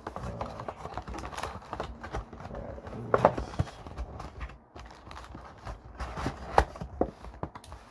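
Plastic wrapping crinkling and a cardboard trading-card box being handled and opened: irregular crackles and rustles, with a few sharper knocks about three seconds in and again past six seconds.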